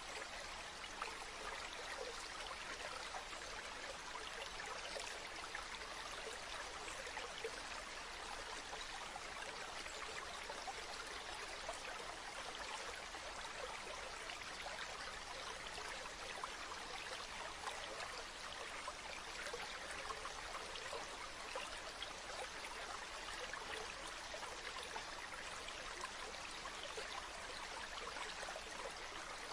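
Stream flowing: a steady, unbroken babble of running water.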